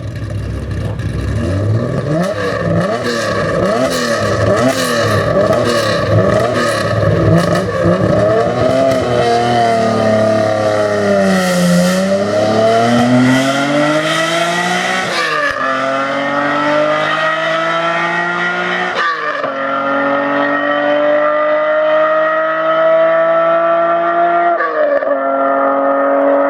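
Nissan Skyline GT-R KPGC10's S20 straight-six engine through a Power Craft exhaust. First a run of quick revs up and down, then the engine pulls up through the gears: a steady climb in pitch broken by three upshifts, each a sudden drop, about halfway through, two-thirds through and near the end.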